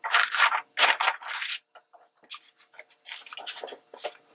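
Paper rustling and sliding as magazine pages and card sheets are handled and shuffled on a cutting mat. A few louder swishes come in the first second and a half, then lighter scattered rustles and taps.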